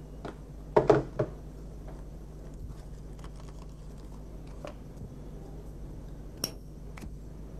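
Handling of a cigarette pack and lighter on a desk: a cluster of sharp taps and clicks about a second in, faint small ticks after, then two sharp clicks near the end as the lighter is struck. A faint steady hum sits underneath.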